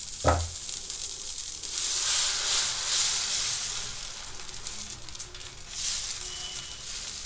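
Dosa batter sizzling on a hot iron tava as a ladle spreads it outward in circles, the hiss swelling as the batter is spread, with a brief knock near the start.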